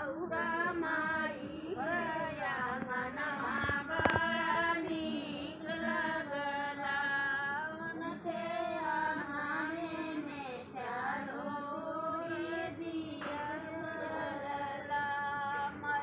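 A devotional song sung in a female-range voice, one melody carried on in long, wavering lines.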